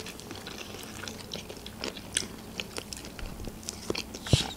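Close-up chewing of McChicken sandwich bites, crispy breaded chicken in a soft bun: irregular small crunches and wet mouth clicks. A single soft thump about four seconds in.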